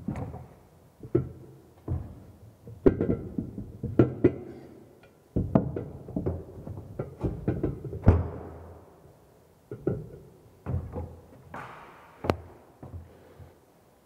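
Ceramic wash basin knocking and scraping on its ceramic pedestal as it is shifted into position by hand: irregular knocks and thuds with short scrapes between them.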